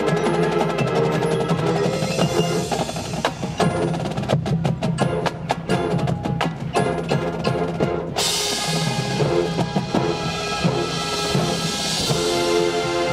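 Marching band playing its field show: sustained brass and woodwind chords over pit and battery percussion. About halfway through comes a passage of evenly spaced sharp percussion strikes, and a bright wash joins in about eight seconds in.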